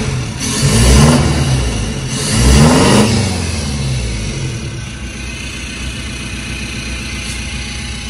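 Toyota Kijang Innova's four-cylinder diesel engine, heard at the tailpipe of its newly fitted custom exhaust, revved twice in quick blips about one and two and a half seconds in, then settling to a steady idle.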